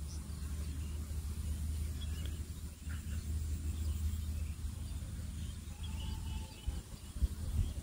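A steady low hum with a few faint bird chirps, and several knocks near the end as a Hitachi circular saw is handled and turned over on the floor.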